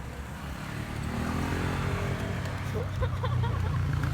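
A motor vehicle's engine running, revving up with its pitch rising about a second in and staying louder after.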